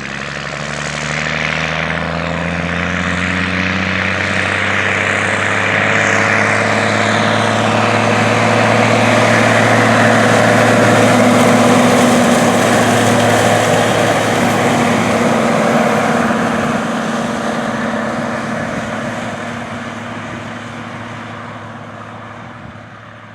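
Steiger PUMA 1000 tractor's diesel engine running as it drives past, growing louder to a peak about halfway through and then fading away.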